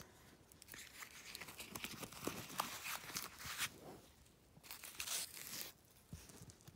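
Handling noise from a small jewellery box and its charms: rustling and scraping with a few light clicks, in two spells, the second shorter.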